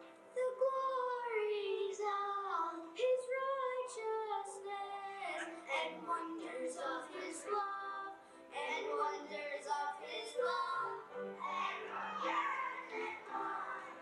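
Children singing a song into microphones with instrumental accompaniment, one young voice carrying the tune at first and more voices joining later.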